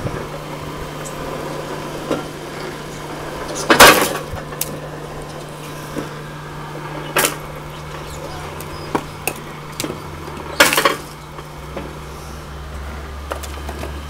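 Firewood processing machine running with a steady motor hum, with scattered light clacks and two loud bangs, about 4 s and 11 s in. A deeper hum joins near the end.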